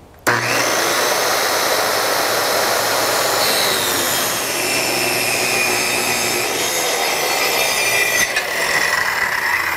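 Circular saw tilted to 45 degrees starting up abruptly and ripping a bevel along the edge of a wooden board, guided by a clamped straight edge; a steady motor whine with the noise of the blade cutting wood.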